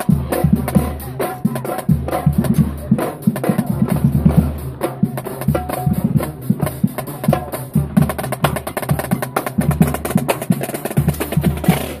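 High school marching band playing a fast stand cheer in the bleachers, driven by its drumline: rapid snare drum strokes and cymbal crashes over low sustained bass notes.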